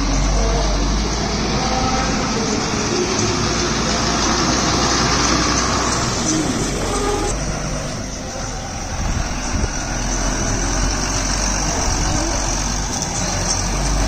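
Diesel engine of an Ashok Leyland tipper lorry running as the lorry drives slowly and manoeuvres.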